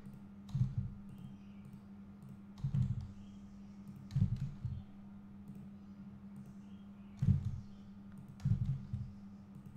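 Computer keyboard and mouse clicks as objects are rotated in Blender, in about five short clusters of low thuds and clicks, over a steady low hum.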